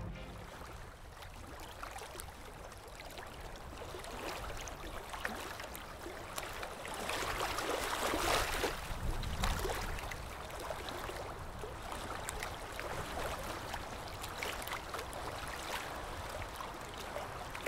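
Gentle water waves lapping, a soft continuous wash that swells a little about seven to ten seconds in.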